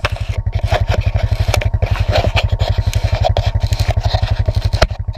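ATV engine running steadily under way with a rapid, even pulsing, with scattered knocks and rattles from the machine riding over a rough dirt trail.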